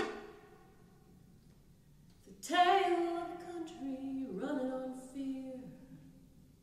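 A single sharp note at the start rings and fades, then after a short pause a woman sings a slow phrase of held notes with vibrato over bowed violin, stepping down in pitch before the phrase fades out.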